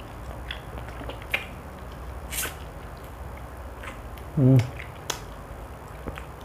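Close-miked eating sounds from someone eating fried chicken: wet mouth clicks, lip smacks and finger licking. About four and a half seconds in there is a short, loud hum from the throat.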